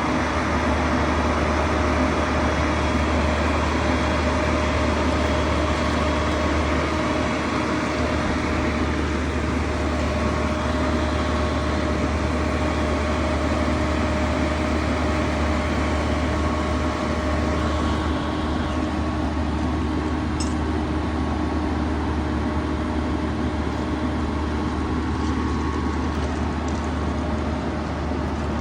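Crane's engine running steadily with a low drone and a steady whine over it, easing slightly about eighteen seconds in.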